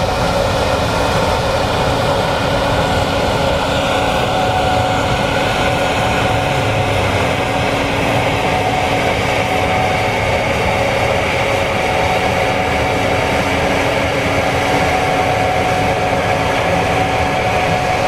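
Gleaner S96 combine harvesting soybeans: engine and threshing machinery running steadily under load. A low rumble carries a steady high whine.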